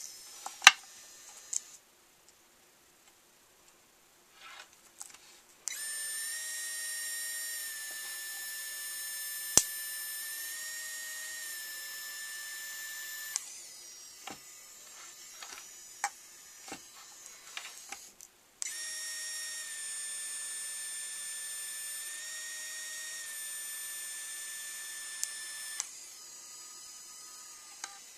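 3Doodler 3D printing pen's drive motor whining steadily as it feeds plastic filament, in two runs of about seven seconds each, with a few sharp clicks in between.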